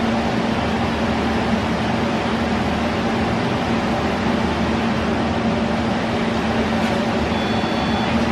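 A machine running steadily: a constant low hum with an even rushing noise over it.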